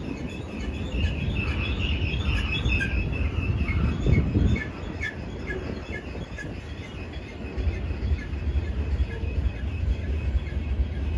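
Freight train of hopper cars and boxcars rolling past, a steady low rumble of wheels on rail. There is a clank about four seconds in. Short high chirps repeat about three times a second through the first half.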